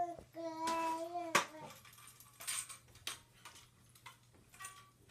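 A child's voice holding one steady, even-pitched noise for about a second, followed by a few short sharp clicks or knocks.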